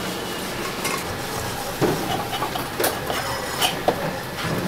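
Wooden pestle grinding and stirring in a ceramic mortar bowl, with several sharp knocks against the bowl over a steady kitchen hiss.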